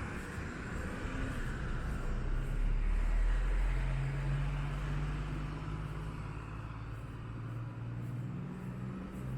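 Street traffic: a motor vehicle's engine running close by with a steady low hum, loudest about three seconds in.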